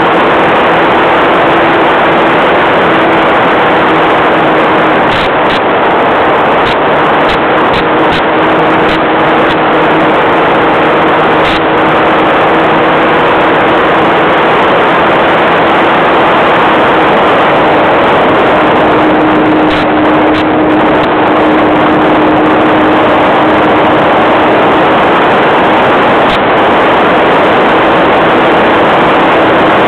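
Radio-controlled model airplane's engine running steadily, heard loud from a camera riding on the plane in flight, under a heavy rush of noise. Its pitch holds level, swelling slightly about twenty seconds in.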